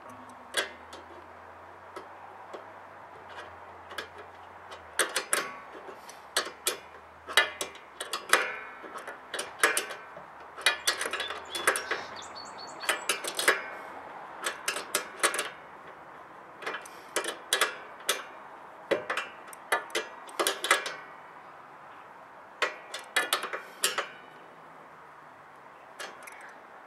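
Adjustable wrench clicking and clinking on a steel nut and bolt as it is turned and repositioned, tightening down a truck back rack's mounting nut: sharp metal ticks in irregular bursts.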